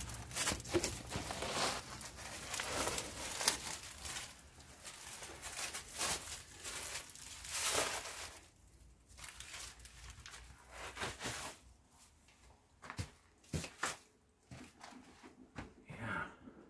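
Footsteps crunching and shuffling over dry leaves and grit on a stone floor, with rustling. After about eight seconds it quietens to a few separate scrapes and taps.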